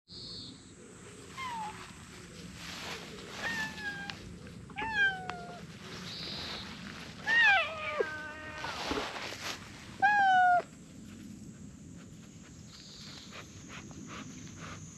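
Cream-coloured cat meowing about six times, short calls that drop in pitch. The loudest come about seven and about ten seconds in.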